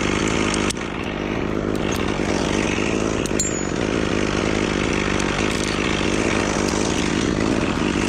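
Chainsaw engine running at a steady, high speed, with a brief drop in level just under a second in.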